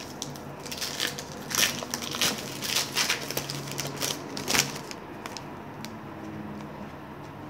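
Wrapper of a baseball card pack crinkling and tearing as it is ripped open: a quick run of sharp crackles for about five seconds, then much quieter.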